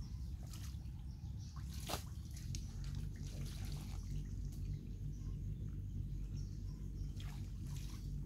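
Shallow muddy pond water splashing and dripping as a net bag is worked through it by hand, with a few sharper splashes, the loudest about two seconds in, over a steady low rumble.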